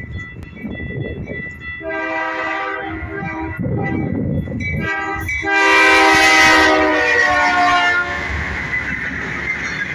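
BNSF freight locomotive's multi-chime air horn blowing for a grade crossing: a long blast, a short one, then a final long blast that is the loudest, about five seconds in. A grade-crossing bell rings steadily underneath, and the locomotives' engine and wheel noise takes over as they pass near the end.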